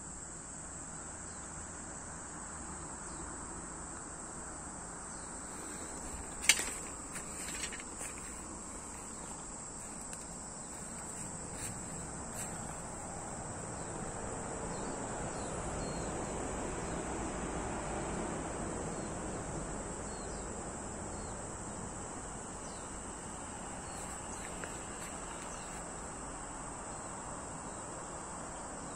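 Insects chirring with a steady, high-pitched trill. A sharp click comes about six and a half seconds in, followed by a few lighter clicks, and a low hum swells up and fades again in the middle.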